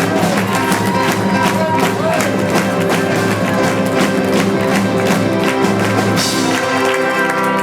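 Live band music with a steady drum beat under sustained instrument notes.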